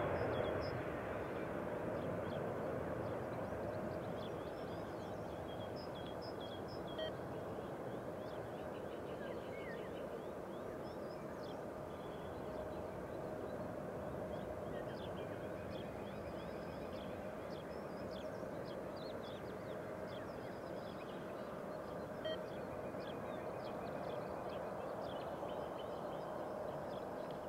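Distant Airbus A350-1000 jet engines (Rolls-Royce Trent XWB) running with a steady rumble and a held whine as the airliner rolls out after landing, easing down a little in the first second. Small birds chirp repeatedly above it.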